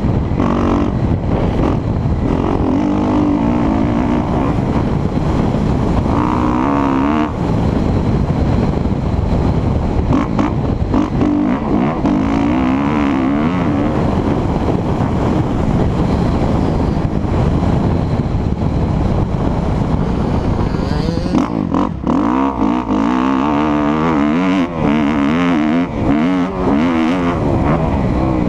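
2017 Kawasaki KX250F's single-cylinder four-stroke engine revving up and down as the bike is ridden around a dirt track, its pitch rising and falling with throttle and gear changes. The revs ease off briefly about twenty-two seconds in. Wind rushes over the helmet-mounted microphone throughout.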